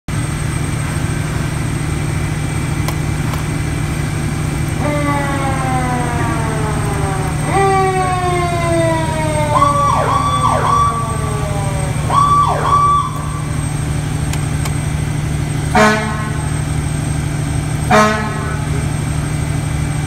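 Fire engine's diesel engine idling under a Federal Q2B mechanical siren that is spun up twice, its pitch falling each time as it coasts down. Around the middle an electronic siren tone cuts in twice, and near the end come two short air-horn blasts.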